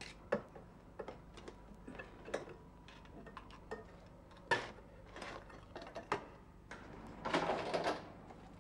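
Scattered clicks and clinks of dishes and cutlery being handled at a kitchen counter, with a sharper knock about halfway through, and a short rattling scrape near the end.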